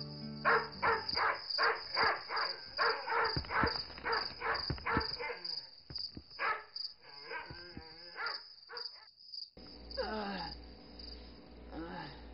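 Dog barking repeatedly, about three barks a second, over a steady high chirping of crickets. The barking stops suddenly about nine and a half seconds in, leaving a low hum and two short falling sounds near the end.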